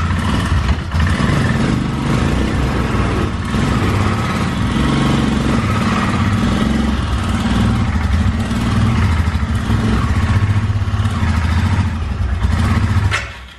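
Royal Enfield Himalayan's 411 cc single-cylinder engine running with a steady low rumble, stopping abruptly near the end. The clutch 'khach' noise the owner gets on morning starts does not occur.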